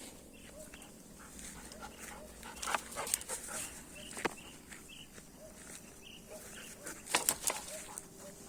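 Dogs making short, faint, repeated whining or yipping sounds, with a few sharp, louder knocks or rustles about three seconds and seven seconds in.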